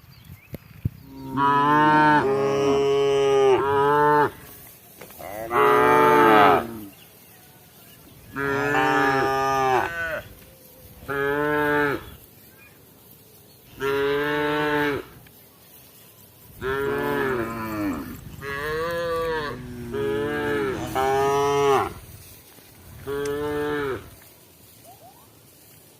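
Cattle mooing over and over: about nine long, loud moos, each lasting one to two seconds, with short pauses between them.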